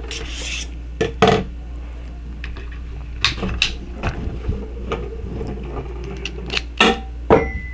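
Small clicks and taps of steel precision screwdriver bits being handled: one pulled from its bit case and pushed into the magnetic bit holder of a mini electric screwdriver. The clicks come in a few separate pairs. A faint steady high tone starts near the end.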